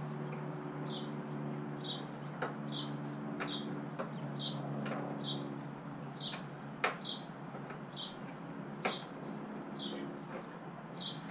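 A small bird chirping over and over, short falling chip notes about once a second. A few light clicks and a low steady hum lie underneath, the hum fading about halfway through.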